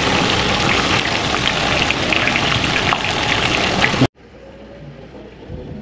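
Marinated chicken frying in hot oil: a loud, steady sizzle with constant crackling and spitting. It cuts off abruptly about four seconds in, leaving only a faint, quiet background.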